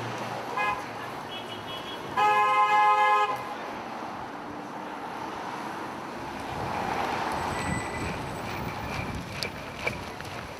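A car horn honks once, loud and held for about a second, about two seconds in, over steady city street traffic noise. Two brief high beeps come just before it.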